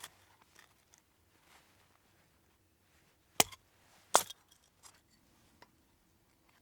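Two sharp knocks a little under a second apart, with a few faint clicks around them.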